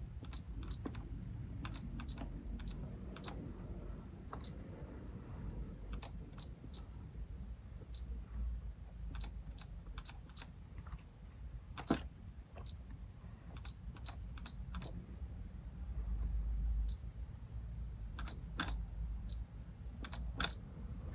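Keys of a Seiko UC-2200 controller keyboard being pressed one by one at an irregular typing pace, each press giving a short, high key beep.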